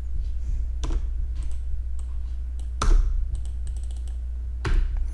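A few separate key presses and clicks on a computer keyboard and mouse, the loudest near the middle and near the end, over a steady low hum.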